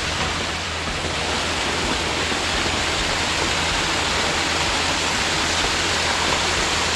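Mountain stream water rushing down a small cascade over granite boulders, a steady, even rush.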